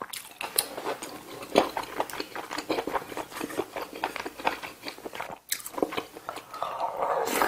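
Close-miked chewing: a dense, irregular run of wet mouth clicks and smacks. About halfway through, a spoon works in the metal pan of braised kimchi.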